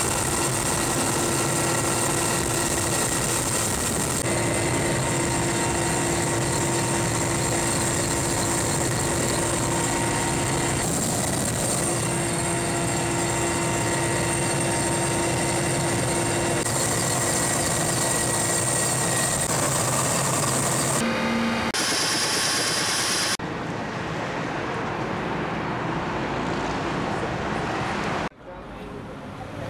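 Steady, loud cabin noise of a Mi-8 helicopter in flight: its twin turboshaft engines, rotor and gearbox, with a steady high whine on top. About two-thirds through it cuts to a different, quieter steady noise, and near the end the sound drops away almost entirely.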